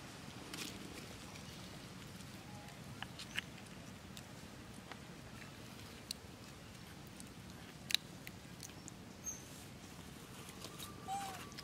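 Quiet outdoor ambience: a steady faint hiss with scattered small clicks and ticks, the sharpest about three and eight seconds in, and one short squeak near the end.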